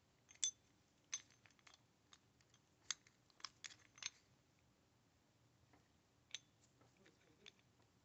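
Faint, scattered metallic clicks and taps of Kwikset deadbolt parts being handled, with the bolt latch moved along the lock cylinder's tailpiece onto the housing. Most of the clicks fall in the first four seconds, with one more sharp one a little past six seconds.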